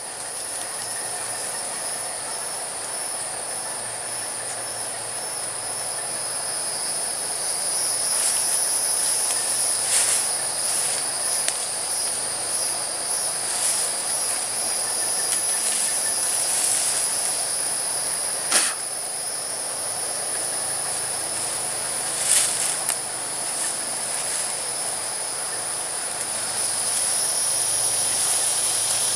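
Insects keeping up a steady, high-pitched drone, with a few sharp clicks and some faint rustling from the hammock strap being worked around a tree trunk.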